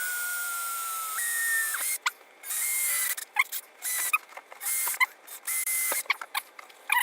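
Cordless drill whining as it drills holes through the plastic base of a tank bag case. The first run lasts almost two seconds, its pitch sagging under load before it rises. Several shorter bursts follow, with handling clicks between them.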